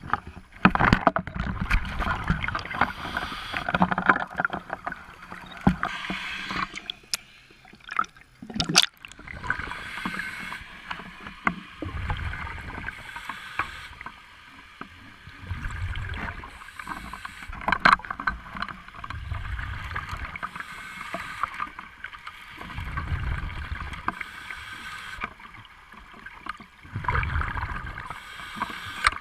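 Scuba diver breathing through a regulator underwater: hissing inhalations alternating with low bubbling exhalations about every four seconds, with a few sharp clicks about seven to nine seconds in.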